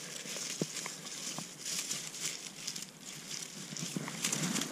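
Soft rustling and crunching of dry reeds and snow against rubber waders as the wearer shifts, with a few faint clicks.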